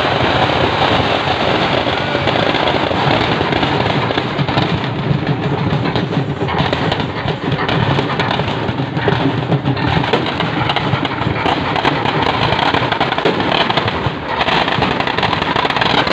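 Firecrackers and fireworks going off without a break: a dense, rapid crackle of pops and bangs.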